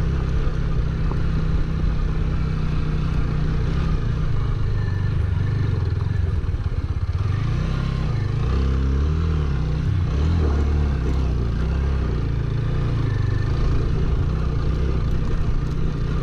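TVS Apache motorcycle's single-cylinder engine running under load as it climbs a steep, rough dirt track. The note shifts with the throttle around the middle.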